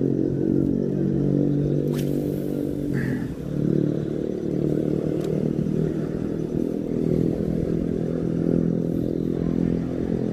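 A motor engine running steadily, with two sharp clicks about two seconds and five seconds in.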